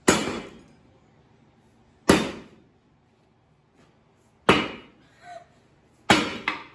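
Four loud, sharp blows on the small-block Chevy 350's metal engine parts, about one every two seconds, each ringing briefly, with a smaller knock between the third and fourth.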